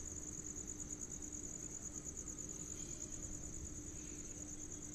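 An insect's steady, high-pitched trill, rapidly pulsing and unbroken, over a faint low steady hum.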